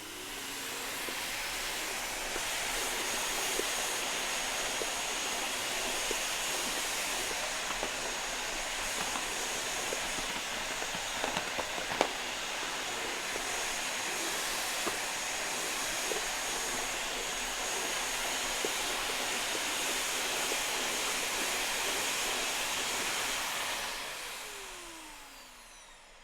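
Philips bagged vacuum cleaner running at maximum power, its nozzle passed over a parquet floor. The motor spins up over the first couple of seconds, runs steadily with a thin high whine and a sharp click about halfway, then winds down near the end with a falling whine.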